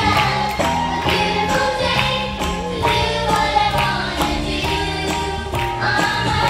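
A song with sung vocals over a steady beat, the music for a children's stage performance.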